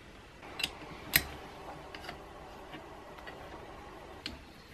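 Light metal clicks and taps of steel screws and a hex key being set into the motor's mounting feet on the aluminium windlass housing. Two sharper clicks come about half a second apart near the start, the second the loudest, followed by a few lighter ticks.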